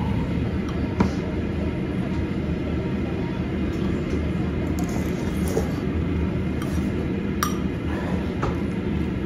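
Tableware clinking: a metal spoon against a ceramic soup bowl and a glass jug set down on the table, a few short sharp clinks with the loudest about a second in, over a steady low background rumble.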